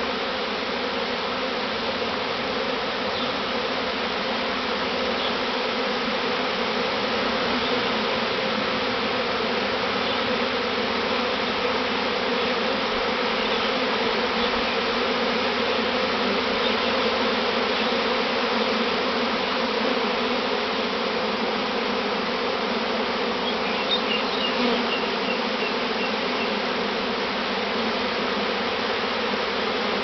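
A large honeybee swarm buzzing at close range as it moves into a hive box: a dense, steady hum of many bees.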